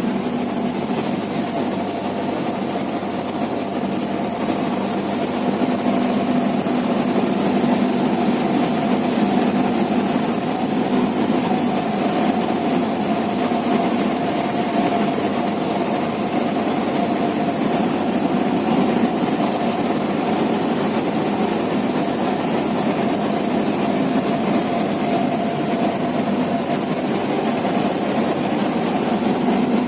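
Cessna 172's piston engine and propeller running steadily, a constant drone that stays level throughout.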